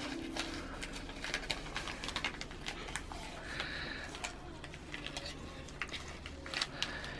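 Gift wrapping paper crinkling and rustling in irregular small crackles as it is picked at and torn open by hand, with a brief low tone right at the start.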